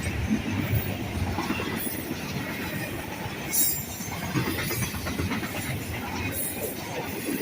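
Intermodal freight train's cars rolling past: a steady rumble of steel wheels on rail with clickety-clack over the rail joints. A short, sharp high-pitched screech comes about three and a half seconds in.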